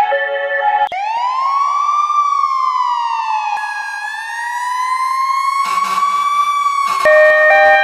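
A siren wailing: it winds up in pitch about a second in, falls slowly, then rises again and holds. Short snatches of music come just before it and right after it stops, near the end.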